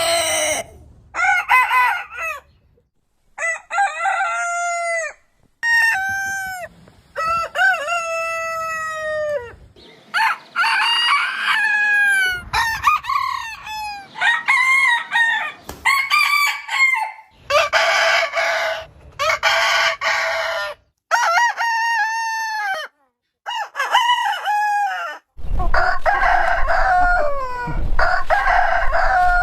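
Roosters crowing one after another, about a dozen cock-a-doodle-doo crows in quick succession, some high-pitched and some lower, most ending in a falling tail, with abrupt cuts between them. A low rumble sits under the last few crows.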